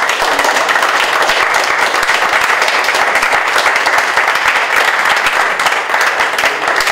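A small crowd applauding: dense, steady hand clapping.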